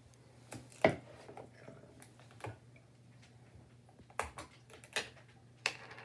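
Plastic bottles and a screw cap being handled: a few scattered clicks and knocks, the loudest about a second in, over a low steady hum.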